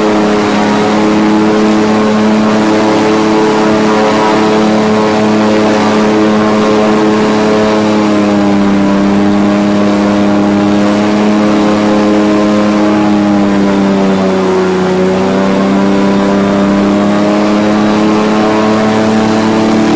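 Airboat's engine and propeller running loud and steady with the boat under way. The pitch sags briefly about three-quarters of the way through, then comes back up.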